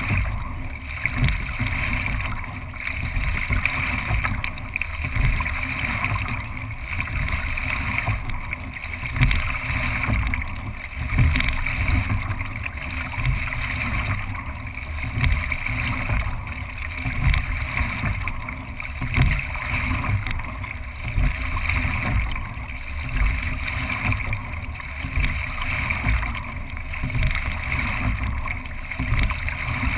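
A single racing scull under way, heard from a camera fixed on its deck: water rushing along the hull, with wind on the microphone. The sound rises and falls about every two seconds, in time with the rowing strokes.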